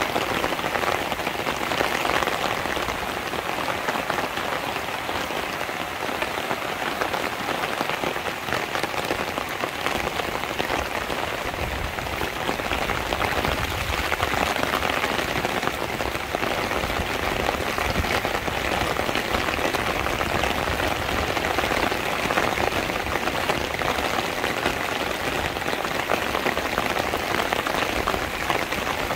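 Steady rain falling, an even, dense patter of drops with no let-up.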